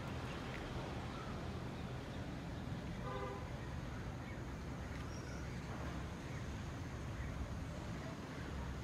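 Outdoor street ambience: a steady low rumble, with one brief pitched toot about three seconds in.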